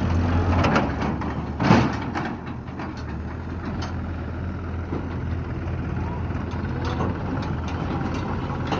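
Heavy diesel engine running steadily, with one loud, brief burst of noise about two seconds in and a few scattered clicks.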